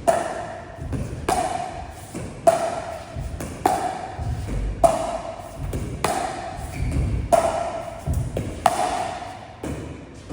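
Pickleball paddles striking a plastic pickleball in a steady rally, about one hit every second and a quarter. Each hit is a sharp pock with a short ring, with fainter taps in between.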